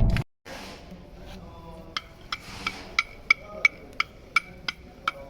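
A vehicle's low rumble cuts off abruptly right at the start, followed by quick short ringing ticks, about three a second, from about two seconds in.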